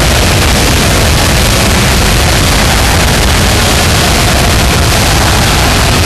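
NHL arena goal horn sounding without a break, loud and so heavily distorted that it comes out as a harsh, noisy blare.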